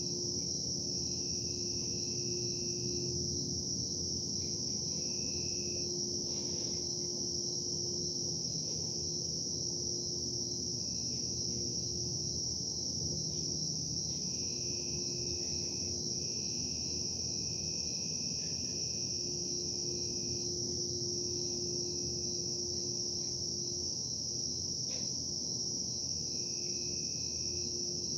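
Continuous low hum of industrial production machinery with a steady droning tone, under a constant high-pitched shrill; faint higher tones come and go several times.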